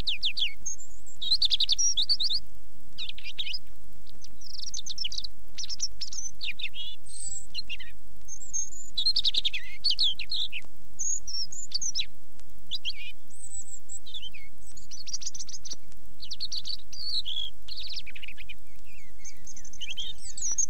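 A recorded songbird singing, played from an LP of bird recordings: short, varied phrases of quick high notes, about one a second, with brief gaps between them.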